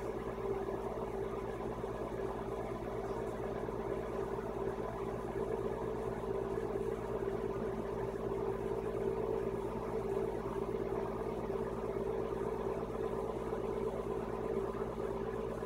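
A steady mechanical hum with an even drone, without change or sudden sounds.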